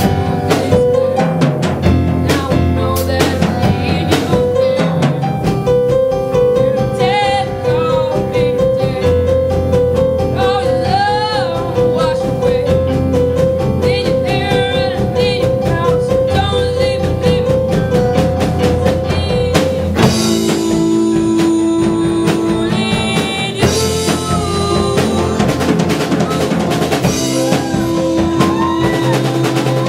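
A band playing an original song with drum kit and bass. A higher note repeats evenly through the middle, and the arrangement changes about twenty seconds in.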